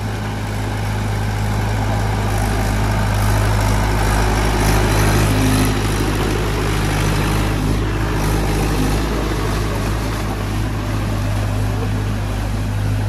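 A tractor's diesel engine running steadily under a noisy mechanical clatter, a little louder for a few seconds near the middle.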